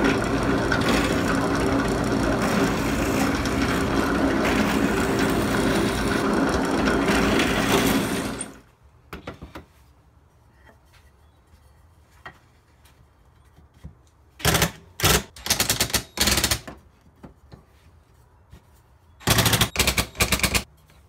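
Drill press running and boring holes through a wooden rocker, steady for about eight seconds, then it stops. Later a cordless drill runs in short bursts, a quick cluster of four and then one longer run of about a second near the end.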